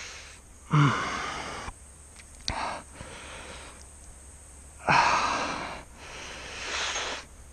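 A man breathing hard through pain while working at a barbed fish hook lodged deep in his finger: heavy out-breaths about a second in and again about five seconds in, each starting with a short grunt, with slower drawn-in breaths between. A single small click about two and a half seconds in.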